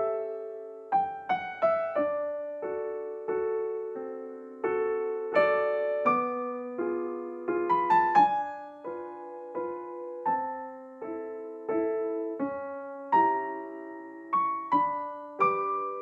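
Background music: a slow, gentle piano piece of single notes and soft chords, each struck and left to ring away.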